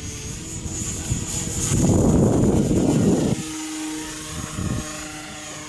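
Radio-controlled model airplane taking off, its motor and propeller running at full throttle with a steady high-pitched whine. A loud rushing noise lasts about a second and a half midway through.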